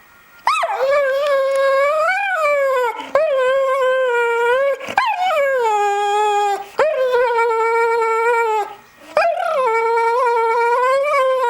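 American Staffordshire terrier howling: about five long drawn-out howls, each close to two seconds, that rise and fall in pitch with short breaks between them.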